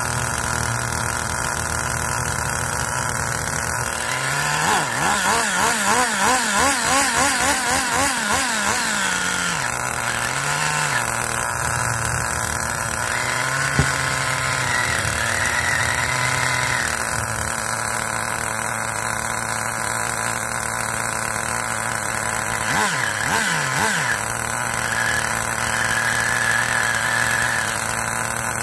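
Small two-stroke glow (nitro) engine of an RS4 RC car running at idle with the glow igniter still on the plug. About five seconds in, the throttle is blipped repeatedly for a few seconds, and there are two brief blips near the end.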